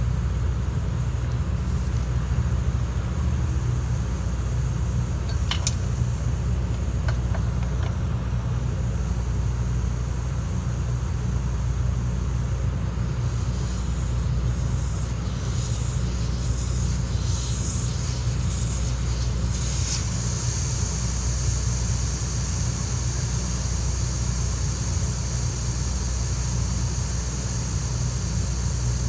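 Compressed air hissing out of a Mercedes X164 rear air spring as its pressure fitting is loosened. The hiss flutters on and off at first, then settles into a steady hiss as the spring bleeds down. A steady low hum runs underneath, with a couple of light clicks in the first third.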